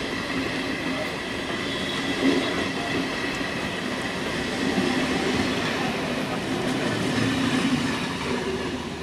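Eastern Railway electric multiple unit (EMU) local train passing close by, its coaches rolling on the rails with a thin, high, steady whine over the rumble. The sound falls away near the end as the last coach goes past.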